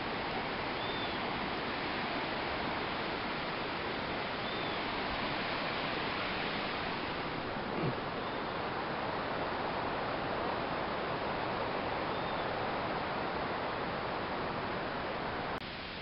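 Steady hiss of outdoor background noise, with four short faint high chirps a few seconds apart and a soft knock about halfway through; the noise drops abruptly near the end.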